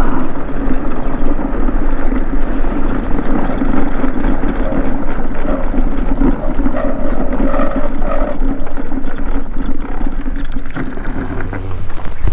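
Motor scooter running at a steady cruising speed, with wind noise on the microphone; the motor's drone drops away near the end as it slows to a stop.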